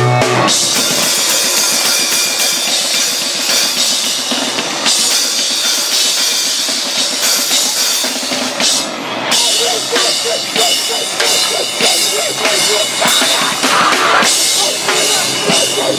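Live rock band playing loud and fast: drum kit with cymbals and bass drum, with bass guitar. A held ringing note breaks off about half a second in as the full band comes in.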